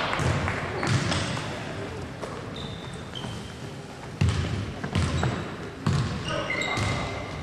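Basketball being dribbled on a wooden sports-hall floor: a handful of separate bouncing thumps, with short high squeaks of players' shoes on the floor near the end.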